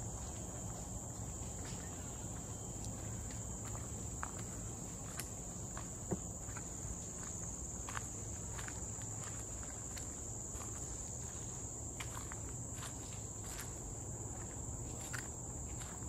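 Walking footsteps on a trail, irregular soft steps under a second apart, with one sharper tap about six seconds in. Behind them runs a steady high-pitched insect drone of cicadas or crickets, over a low steady hum.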